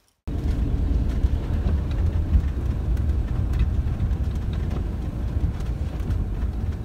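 Steady low rumble of a motorhome driving along a road, engine and road noise. It starts suddenly just after the beginning.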